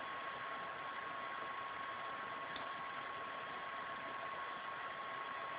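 Steady background hiss with a faint constant high-pitched whine underneath: recording noise, with no distinct event.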